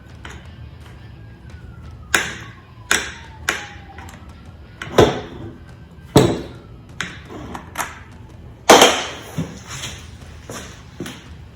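Chainsaw parts and hand tools clicking and knocking as the saw is taken apart, about a dozen irregular sharp taps with the loudest knock about nine seconds in.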